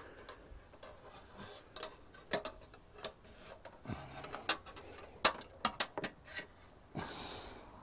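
Scattered light clicks and taps of a bent coat-hanger wire knocking against the car's door post and body metal as it is worked down the gap, with a short hiss near the end.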